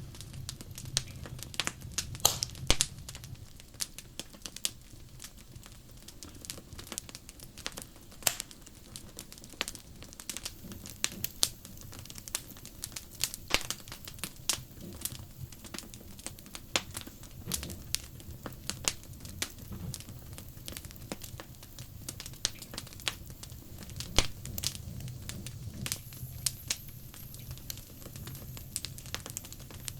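Wood fire crackling, with frequent irregular sharp pops and snaps over a low steady rumble.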